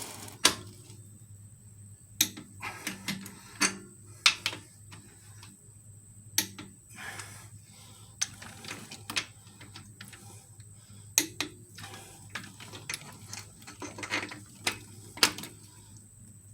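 Torque wrench ratcheting and clicking on the Jeep 4.0 straight-six's cylinder head bolts during the second tightening pass. It gives irregular sharp metal clicks, a few of them much louder than the rest.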